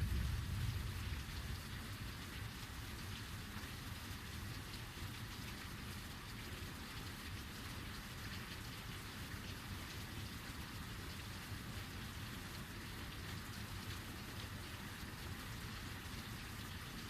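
Heavy rain falling steadily, with the low rumble of thunder dying away in the first second or two.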